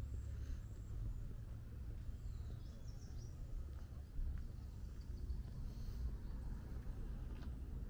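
Outdoor ambience: a low steady rumble with faint bird chirps about three seconds in.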